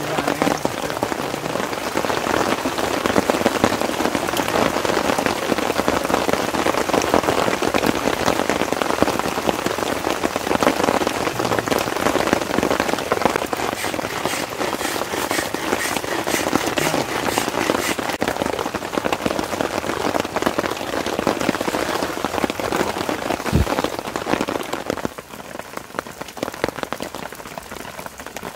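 Rain pattering on a tent and its tarp, a dense steady hiss of countless drops that grows softer about 25 seconds in.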